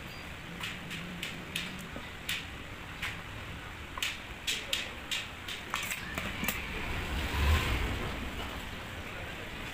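Irregular light clicks and clinks of small hard objects being handled, a dozen or so spread unevenly, with a louder rustling, knocking patch about seven and a half seconds in.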